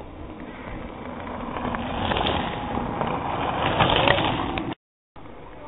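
Wind buffeting the microphone over an outdoor noise that swells for a couple of seconds. Near the end it breaks off in a brief dropout to silence.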